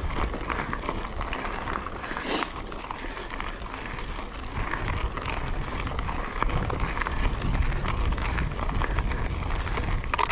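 Wind buffeting an action camera's microphone, with irregular crunching and clattering of movement on a trail and one sharp crack about two seconds in.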